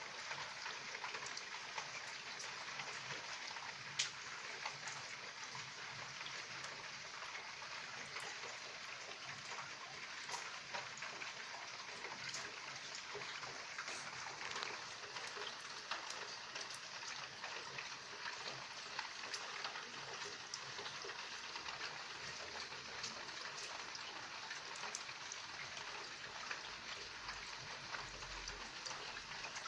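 Steady night rain falling, a fine even patter with the sharp ticks of single drops striking a hard surface, one louder tick about four seconds in.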